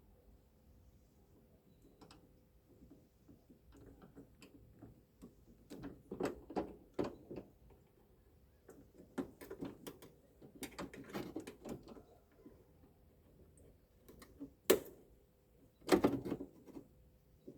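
Irregular clicks, rattles and knocks of hand tools and metal and plastic parts being handled while a vehicle tailgate is put back together with bolts and screws, with two sharp knocks near the end.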